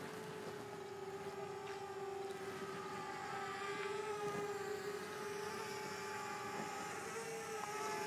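Simtoo Fairy quadcopter flying, its motors and propellers giving a steady whine with a slight waver in pitch, growing a little louder toward the end.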